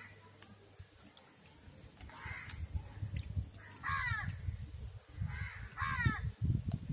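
Crows cawing several times, each call falling in pitch, the clearest two about two seconds apart. Under them, low splashing and sloshing of water in a plastic tub as a pigeon is dunked and scrubbed.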